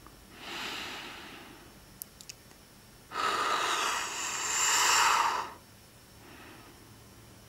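Close, breathy sighs and heavy breathing: a breath about half a second in, a long, loud exhaling sigh from about three seconds to five and a half, and a faint breath near the end. A few small mouth clicks fall around two seconds in.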